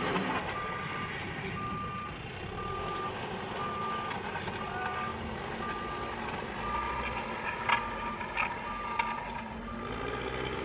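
A heavy machine's reversing alarm beeps steadily about once a second over a running engine, with three sharp knocks near the end.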